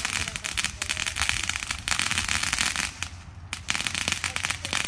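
A string of firecrackers popping and crackling in rapid succession, with a short lull about three seconds in.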